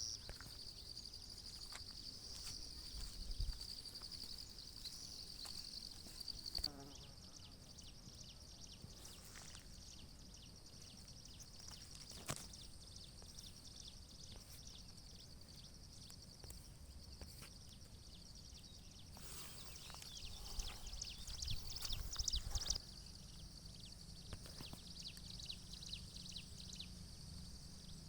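Insects chirring: a steady high-pitched drone with a fast pulsing texture, loudest in the first few seconds and swelling again after about twenty seconds, over a faint low rumble.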